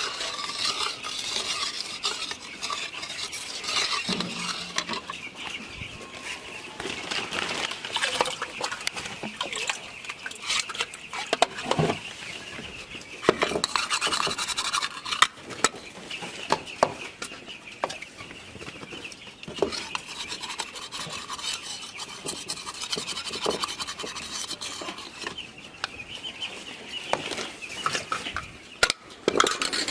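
Molasses multivitamin being stirred into a water tank: repeated scraping and knocking of the stirrer against the container, with a few sharper clacks.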